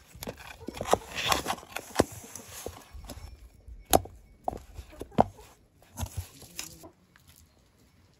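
Sticky flour dough being squeezed and kneaded by hand in a metal basin: irregular squelches, with sharp knocks of hand and dough against the basin. It goes quieter for about the last second.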